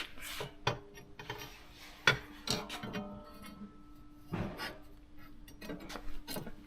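Metal parts clinking, knocking and scraping as a freshly sharpened cutting blade is handled and fitted back onto its machine, with a sharp knock about two seconds in, over a faint steady hum.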